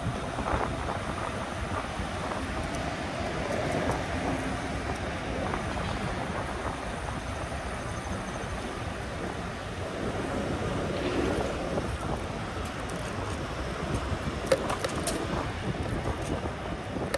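Wind rushing over the microphone with road noise while riding a fat-tire e-bike, steady throughout, with a couple of sharp clicks about three-quarters of the way in.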